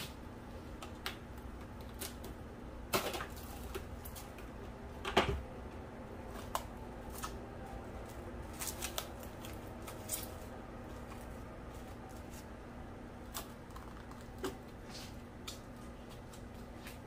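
Plastic cling wrap being pressed and smoothed around the rim of a glass bowl by hand: scattered crinkles and clicks, the two loudest about three and five seconds in.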